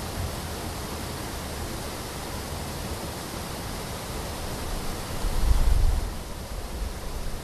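Steady rushing hiss, like falling or breaking water, with a low rumble that swells and grows louder about five seconds in, then eases off.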